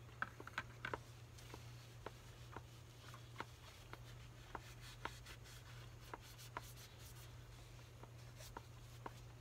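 Small scattered clicks and ticks, about two a second, with a quick cluster of louder clicks in the first second, from a man handling things while eating, over a steady low hum.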